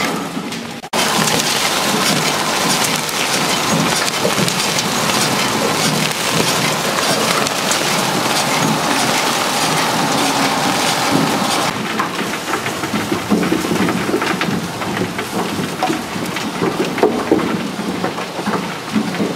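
Garlic soil-cleaning machine running: soil and dry debris pouring and rattling through it as a dense, even hiss. Partway through, the sound drops a little and turns choppier, with separate knocks as garlic bulbs ride the conveyor.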